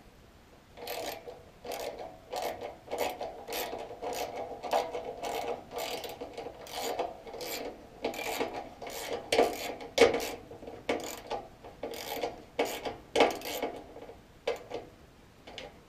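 Screwdriver turning the mounting-strap screw that holds a run capacitor to a blower motor's sheet-metal housing, in a long run of short scratchy, rasping strokes, about two a second.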